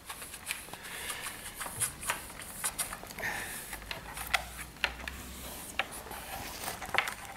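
Hands handling a small wooden box-shaped object and its cloth wrapping: irregular clicks, taps and light rattles, with some rustling of the cloth.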